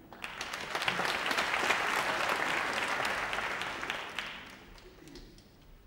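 Audience applauding in a hall: the clapping swells within the first second and dies away over the last two seconds.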